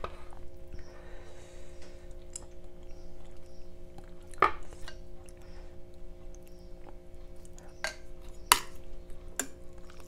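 A person eating curry with a metal spoon: soft chewing and mouth sounds, with small knocks and clicks of the spoon in the bowl. The two loudest clicks come a little after four seconds and at about eight and a half seconds, over a steady low hum.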